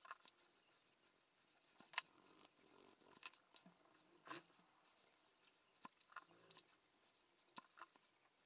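Quiet handling sounds as a cotton swab scrubs a mobile phone circuit board: soft scratchy rubbing broken by about eight small sharp clicks and ticks, the loudest about two seconds in.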